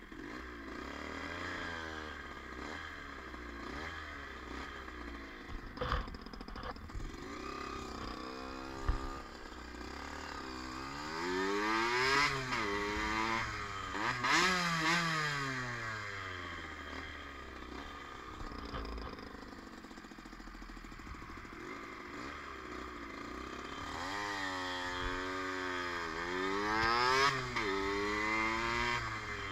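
Yamaha DT 50's small two-stroke single-cylinder engine running under way, revving up and easing off twice, around a third of the way in and again near the end. Two short knocks come about six and nine seconds in.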